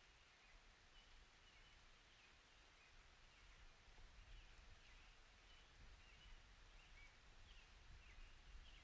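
Very faint outdoor ambience: a low hiss with a small bird chirping over and over in short, high notes.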